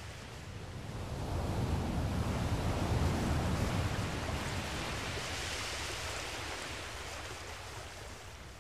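Rushing outdoor wind-and-surf noise, swelling about a second in and dying away toward the end.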